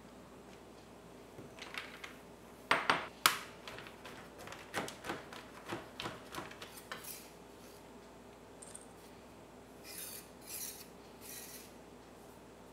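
A knife chopping dark chocolate on a cutting board: a run of sharp knocks, the two loudest about three seconds in, with quicker lighter strokes until about seven seconds in. Near the end come a few short rustling scrapes as the chopped chocolate is tipped into a stainless steel bowl.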